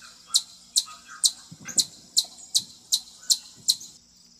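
Chipmunk giving its repeated 'chip' alarm call: sharp, high chips at an even pace of about two and a half a second, stopping about four seconds in.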